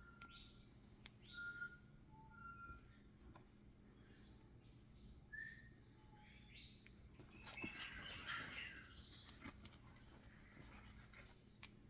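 Faint, scattered chirps and short whistled calls from lovebirds: single notes at varying pitches, some sweeping upward, with a busier burst of chirping about two-thirds of the way through.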